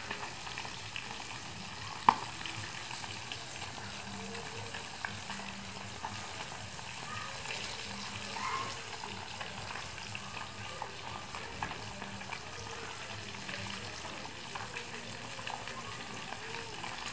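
Daing na bangus (dried milkfish) frying in hot oil in a pan: steady sizzling with scattered small crackles, and one sharp pop about two seconds in.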